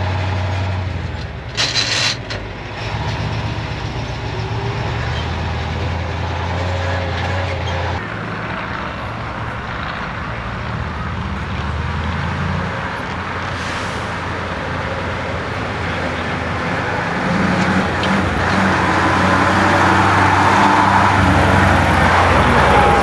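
KrAZ-255 6x6 truck's V8 diesel engine running as it drives off-road, a low steady drone that grows louder over the last few seconds. A short hiss about two seconds in.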